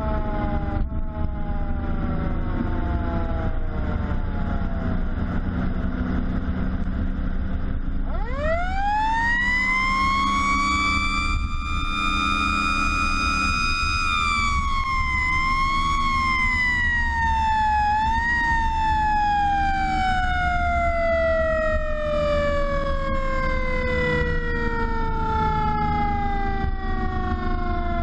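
A Pierce fire truck's mechanical siren is winding down at first. About eight seconds in it spins back up steeply and holds high for several seconds, with two short blips, then coasts slowly down. The truck's engine and road noise rumble steadily underneath.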